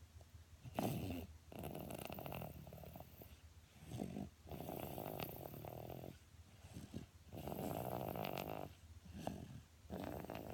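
Snoring: a rasping snore on the breaths, coming in pairs roughly every two to three seconds with quieter gaps between.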